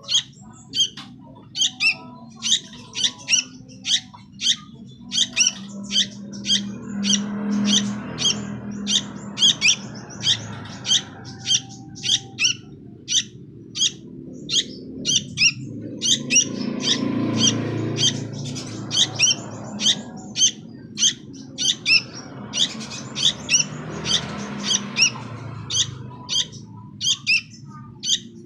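Young sooty-headed bulbul giving short, sharp, high-pitched calls over and over, about two or three a second, a shrill insistent chatter. A low rumble underneath swells and fades a few times.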